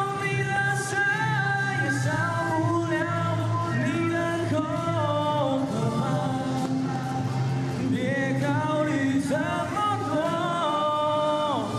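A man singing a slow Mandarin pop ballad into a handheld microphone over backing music, holding long notes that slide between pitches.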